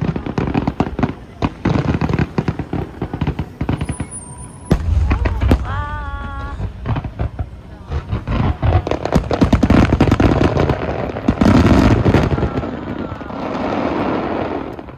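Fireworks display: rapid crackling and popping of many bursting shells, with heavy booms about five seconds in and a dense barrage of crackles and booms in the second half.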